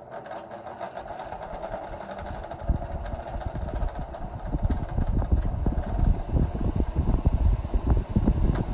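Vintage Lasko-made Sears hassock fan starting up and running on low speed, a motor hum over an uneven, rocky low rumble that grows louder over the first few seconds. The roughness is the sign of what the owner takes for a tight motor that needs cleaning and oiling.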